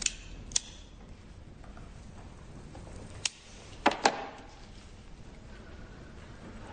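Cigarette lighter being struck to light a cigarette: five sharp clicks, two near the start and three more about three to four seconds in, over a quiet room hush.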